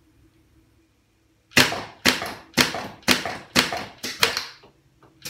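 A 3D-printed HPA Nerf bullpup blaster with a Super Core firing semi-automatically: about seven sharp air pops, roughly two a second, starting about a second and a half in, the last two close together. The string of shots stops when a Worker dart jams in the feed.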